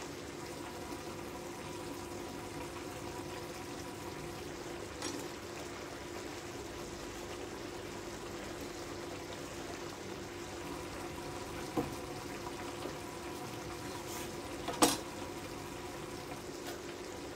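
A pan of tomatoes simmering on the hob: a steady bubbling hiss over a steady hum. A knife knocks on a wooden cutting board twice, about three seconds apart, the second louder.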